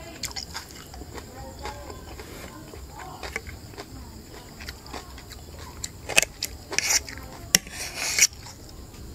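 A metal fork clinking and scraping on a ceramic plate as food is cut and picked up. A few sharp clinks and two short scrapes come in the second half.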